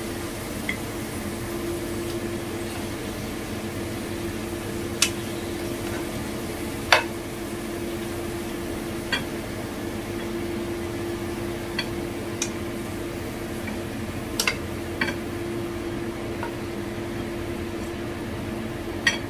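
Spatula knocking and scraping against a nonstick wok in a scattering of sharp clicks as a pork and garlic-chive stir-fry is scooped out, over faint sizzling and a steady low hum.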